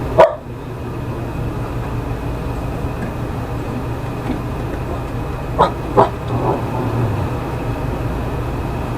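A dog gives two short barks close together about halfway through, over a steady low hum. There is a loud sharp sound just after the start.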